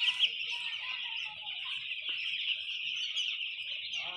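A flock of chickens calling all at once: a dense, continuous chorus of many overlapping high calls.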